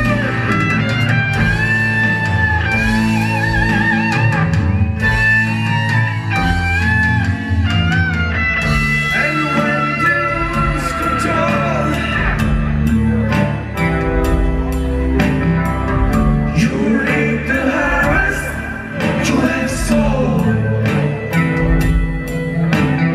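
Live rock band playing: an electric guitar carries the melody with wavering vibrato over bass and drum kit, and a singer's voice comes in.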